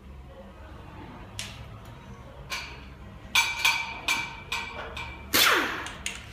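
A run of sharp metal clanks and knocks as hand tools and parts are handled on a concrete shop floor, about eight over a few seconds. The loudest, a little past five seconds in, rings on and falls in pitch.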